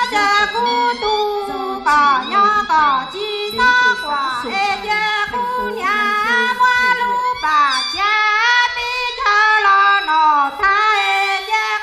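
A woman singing a Hmong song solo into a microphone: a high voice whose pitch slides up and down between held notes.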